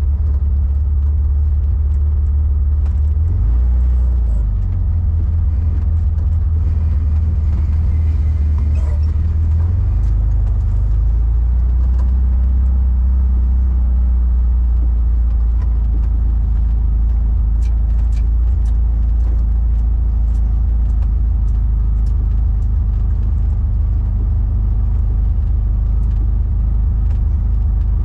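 A car's engine and road noise heard from inside the moving car: a steady, loud, deep drone that shifts in pitch twice, about 4 and 10 seconds in.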